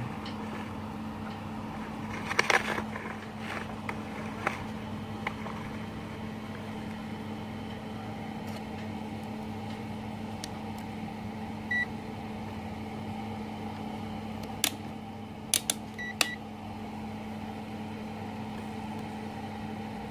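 Smarter TIG-180S DC inverter welder switched on and idling with a steady hum, no arc struck. Over it come a few sharp clicks and short high beeps as the digital multimeter's dial is turned to read the welder's output voltage.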